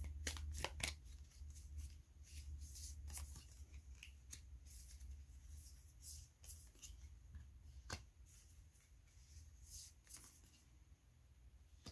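Tarot cards being drawn from a deck and laid down on a cloth: faint papery flicks and snaps, several quick ones in the first second, then single ones every second or two, over a steady low hum.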